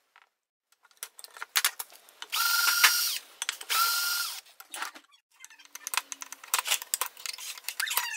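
Cordless electric screwdriver driving screws into a chainsaw crankcase: two short runs about half a second apart, each with a whine that spins up and winds down. Before and after them come the clicks and clatter of small metal parts being handled.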